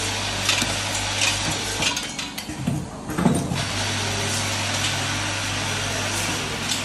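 Automatic vertical form-fill-seal packing machine for small plastic parts running with its vibratory bowl feeder: a steady low hum under an even hissing rattle. Three short sharp hisses come in the first two seconds, and there is a low thud about three seconds in.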